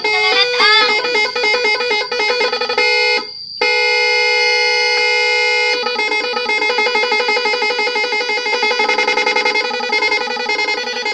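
Bus 'telolet' musical horn, several trumpet horns sounding together, playing a tune of fast warbling notes and held chords. It cuts out briefly about three seconds in, then carries on.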